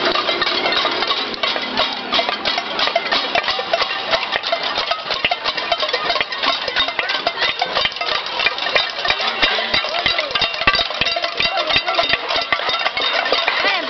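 A crowd banging pots and pans in a cacerolazo, the Chilean pot-banging protest: dense, unbroken metallic clanging from many strikers at once, with no gaps.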